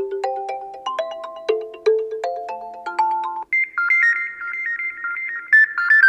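Xiaomi Redmi K30S default ringtones: a melody of short notes, each struck and then fading, stops abruptly about three and a half seconds in. The next ringtone follows, a higher-pitched melody of quick alternating notes.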